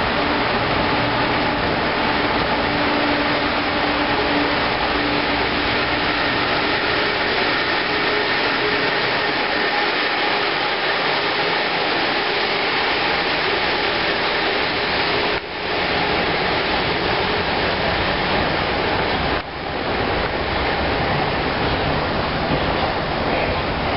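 Amtrak Acela Express trainset passing through a station at speed: a loud, steady rush of wheels and moving air. A steady hum sounds under it and fades out about seven seconds in.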